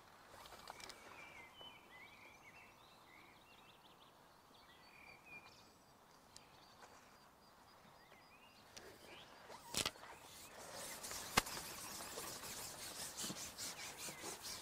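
Faint small-bird chirps, then two sharp clicks a second and a half apart and a run of quick rustling ticks as the pole-fishing tackle is handled.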